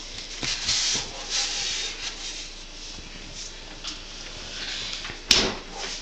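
Soft rustling and rubbing against fabric as a cat rolls and squirms on a chair cushion, with one short thump about five seconds in.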